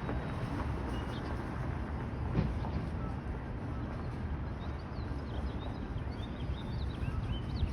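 Steady low outdoor rumble, with small birds chirping in short high notes through the second half.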